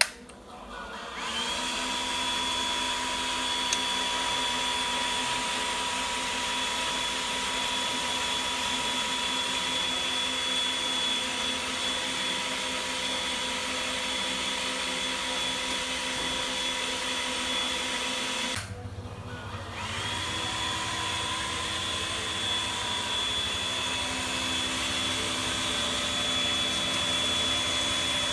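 Lemongrass cutting machine's motor starting up and running with a steady whine. About two-thirds through it cuts out for about a second, then runs up to speed again.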